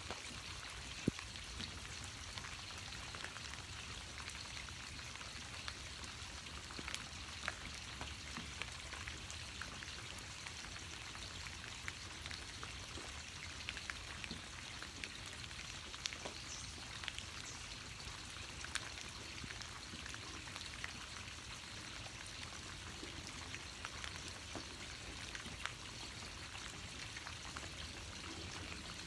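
Steady rain falling, a constant patter with single drops ticking sharply here and there, one louder about a second in.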